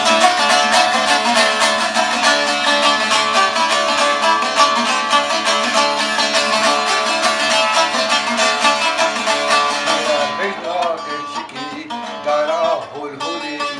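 Saz (long-necked bağlama lute) strummed in a fast, dense rhythm. About ten seconds in the strumming thins to sparser plucked notes and a man's singing voice comes in over them.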